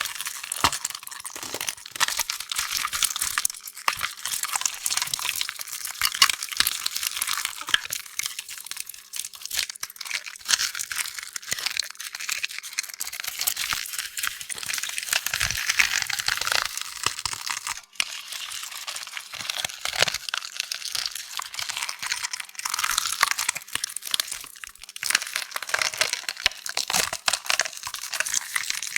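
Continuous crumbling sound effect: a dense, unbroken run of small crackles and crunches, mostly high-pitched with little low rumble, with a brief break about 18 seconds in.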